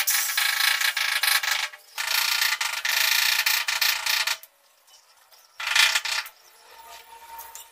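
Steel tape measure rattling as its blade slides through the case, in two long pulls of about two seconds each and a short third one about six seconds in.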